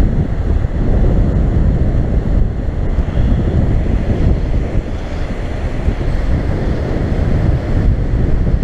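Steady loud rushing noise: water discharging below the dam churning the river, mixed with wind buffeting the microphone.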